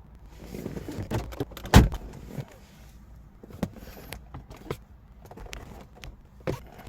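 Rustling, clicks and knocks of someone handling a car's interior fittings, with one heavy thump just under two seconds in.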